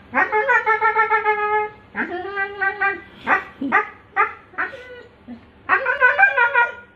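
Husky vocalizing in long, pitched whining howls: a long held call in the first couple of seconds, a string of short yelps in the middle, and another long call near the end.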